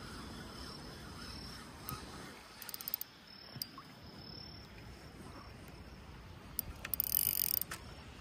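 Outdoor background noise with a faint steady high-pitched tone, a quick run of clicks about three seconds in, and a short hiss near the end, the loudest sound here.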